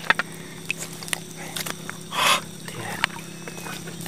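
A hooked baung catfish thrashing at the water's surface, with water splashing and one louder splash a little over two seconds in, over a steady low hum.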